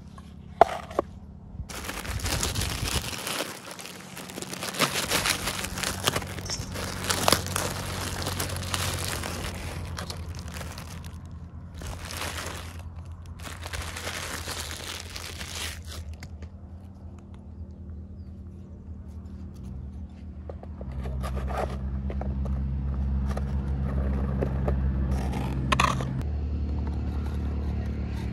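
Thin clear plastic packaging crinkling and tearing as toy trolley parts are unwrapped by hand, in a long rustling stretch with two short pauses. Then quieter handling of the small plastic parts with a few light clicks, and a low steady hum comes in later on.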